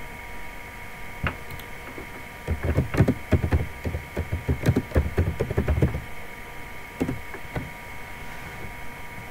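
Computer keyboard being typed on: a quick run of key clicks lasting about three and a half seconds, with a few single clicks before and after, over a faint steady high whine.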